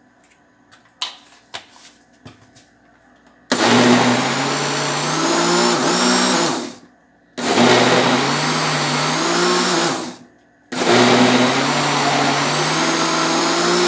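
Britânia countertop blender switched on three times, each run about three seconds, mixing a thick flour-and-water batter to work in salt that was added late; the motor's pitch wavers slightly within each run. A few small clicks of handling come before the first run.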